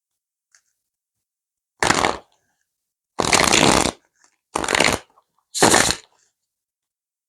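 Tarot deck being shuffled by hand: four short bursts of card noise, the second one longest.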